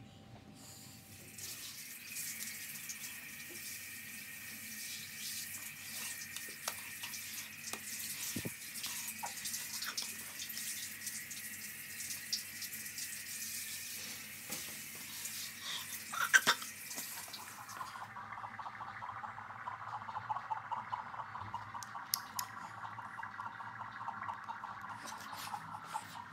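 Water running steadily with a hissing rush. About two-thirds of the way in it changes to a lower, duller rush. A few clicks and knocks sound over it, the loudest a little past the middle.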